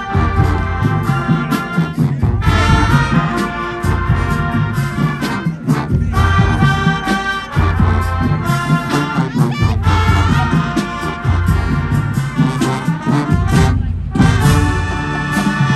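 Marching band's brass section, sousaphones included, playing loud sustained chords in phrases, with short breaks between phrases about every three to four seconds.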